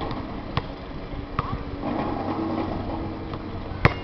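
A few sharp knocks over a steady low hum: two lighter ones in the first second and a half, and a much louder one near the end.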